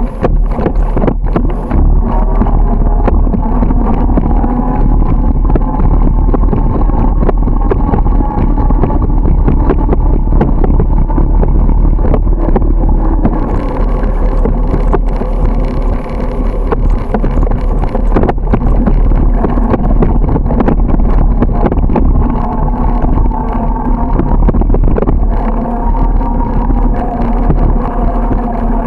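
Wind rushing over the microphone of a camera riding on a moving bicycle, a loud, steady, deep rumble, with frequent short knocks and rattles from the bike going over the road surface.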